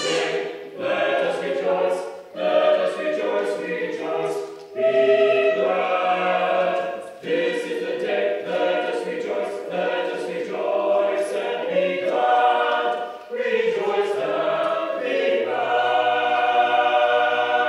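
A choir singing a cappella, in sung phrases with short breaks between them.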